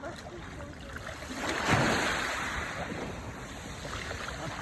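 Surf: a wave rushes in, a wash of noise that swells about a second and a half in and slowly dies away.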